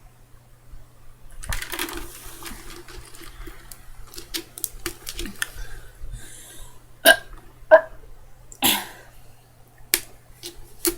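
A person drinking iced water in gulps, followed by a handful of short, sudden throat sounds, the loudest about seven and a half seconds in and a slightly longer one just before nine seconds.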